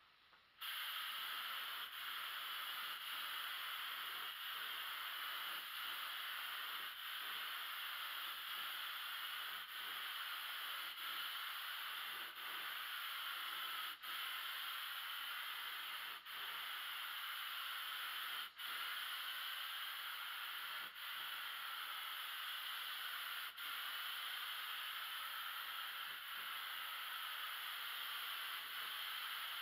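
Aerosol spray paint can spraying in a long steady hiss that starts about half a second in, broken by a handful of very brief pauses where the nozzle is let up.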